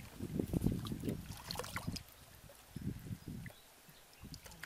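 Hands sloshing and splashing through shallow muddy water while groping for fish, busy for the first two seconds and then quieter, with a few softer splashes and small drips as a fish is lifted out.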